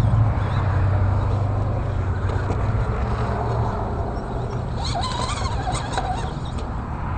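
Axial AX10 radio-controlled rock crawler's electric motor and gear train running under load as it climbs a steep boulder, over a steady low hum that fades. A few short squeaks come about five seconds in.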